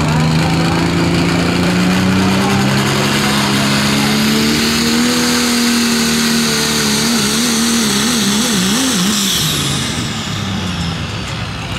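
Competition pulling vehicle's engine at full throttle during a pull, its pitch climbing slowly for about six seconds, then wavering quickly up and down before dropping away near the end.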